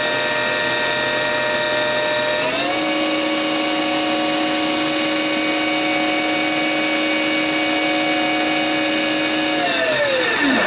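Mori Seiki CL-153 CNC lathe spindle running with a steady whine. About two and a half seconds in, the pitch steps up as the spindle speeds up, and near the end the whine falls away as the spindle slows down.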